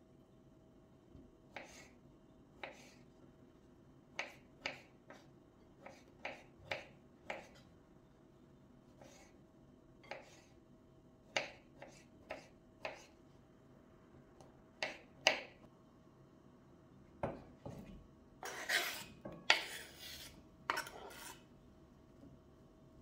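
Kitchen knife cutting artichoke hearts on a bamboo cutting board: irregular sharp taps as the blade meets the board. Near the end there are longer scraping sounds as the cut pieces are swept off the board into a pan.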